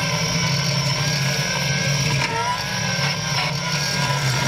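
Caterpillar 297C compact track loader's diesel engine running steadily under load as its front-mounted hydraulic bush hog cuts through brush. A higher whine dips and recovers, and there are a few sharp knocks from the cutting.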